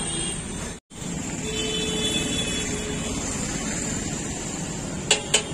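Steady roadside traffic noise from passing vehicles. It breaks off briefly about a second in, and a couple of sharp clicks come near the end.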